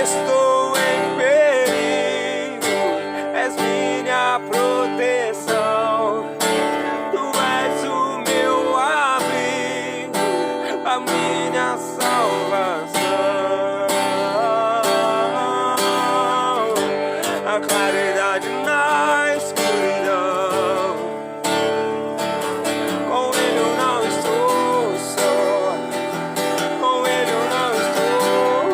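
Instrumental passage of a worship song: acoustic guitar strumming steadily, with a wavering melody line played or hummed over it.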